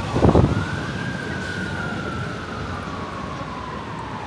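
A siren wailing: one tone that rises briefly, then falls slowly through the rest, over steady road noise from a moving car. A short loud burst of noise comes at the very start.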